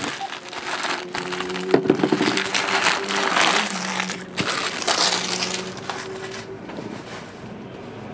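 Empty trading-card pack wrappers being crumpled and swept together by hand, a dense crinkling that dies away about six and a half seconds in.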